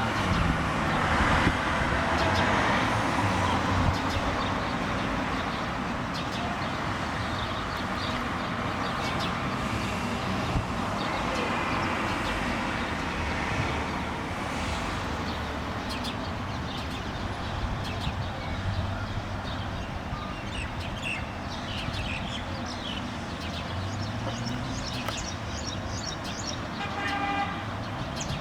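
Sparrows chirping in short, repeated notes over steady traffic noise from a nearby road; the chirps are more frequent in the second half, and a car horn sounds briefly near the end.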